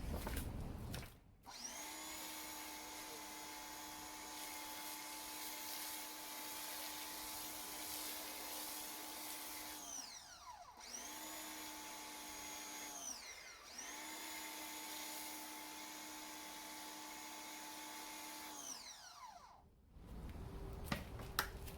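Electric pressure washer's motor and pump running steadily while spraying through a foam cannon. The motor winds down and starts up again twice, then winds down to a stop near the end.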